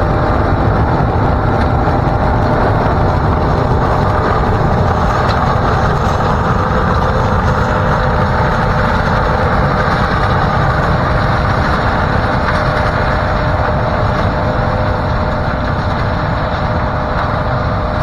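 John Deere combine harvesting corn, its engine and threshing machinery running steadily with a constant whine over the rumble, growing a little quieter near the end as it moves away.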